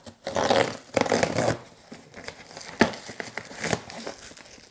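Clear plastic wrapping on a cardboard parcel crinkling and tearing as it is cut and pulled open, in several bursts, with a sharp click a little past halfway.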